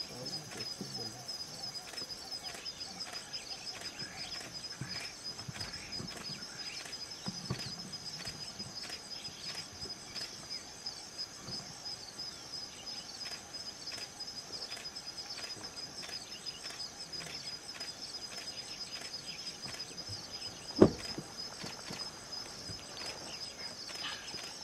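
Steady high-pitched insect chorus with a fast, even pulse, over faint scattered ticks. A single sharp knock stands out about 21 seconds in.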